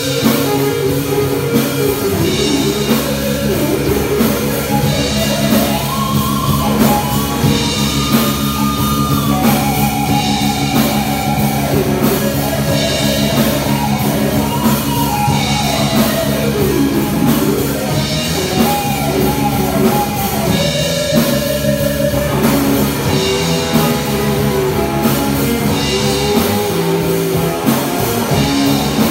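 Live rock band playing: two electric guitars through amplifiers over a drum kit, loud and continuous, with a lead guitar line that bends and glides in pitch.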